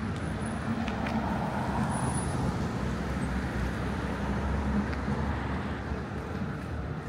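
City street traffic: passing motor vehicles with a steady low engine rumble, a little louder in the middle.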